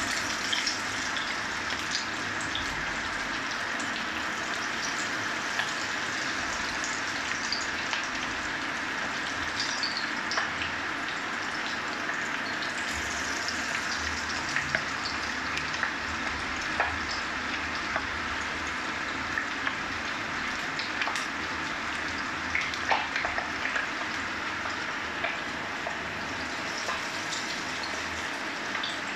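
Spice-marinated chicken pieces frying in hot oil, freshly added: a steady sizzle with scattered pops and crackles.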